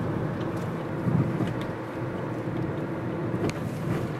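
Car heard from inside the cabin while driving: steady engine and tyre rumble with a few faint ticks.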